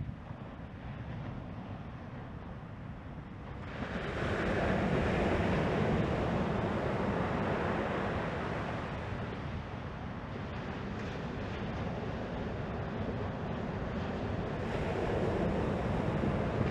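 Ocean surf breaking and washing ashore, with wind buffeting the microphone; the wash grows louder about four seconds in.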